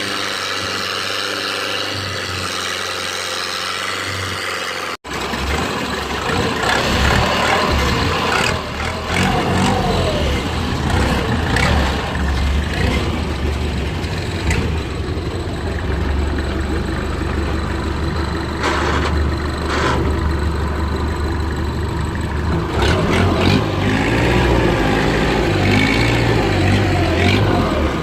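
Small fishing boat's engine running steadily at sea. There is a sudden brief break about five seconds in, after which the low rumble is stronger.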